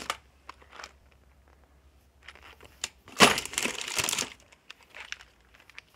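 Rummaging through a container of nails: scattered small clicks and rustling, with one louder burst of crinkling and clattering about three seconds in.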